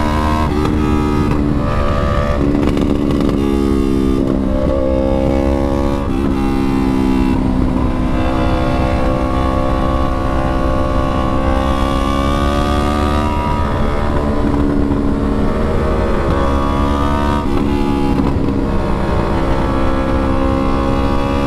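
Straight-piped 2019 Yamaha R3's 321 cc parallel-twin engine running under way, exhaust open after the headers and mid pipe with no muffler, its pitch rising and dropping several times with throttle and gear changes.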